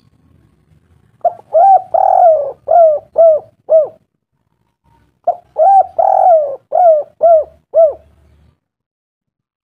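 A pigeon-like bird cooing: two matching phrases of several rising-and-falling notes, each phrase about three seconds long, the second starting about a second after the first ends.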